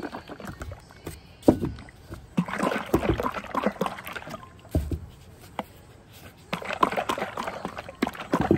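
Liquid glaze sloshing inside a plastic jar as it is shaken by hand, in two bouts of about two seconds each, with a few dull knocks in between.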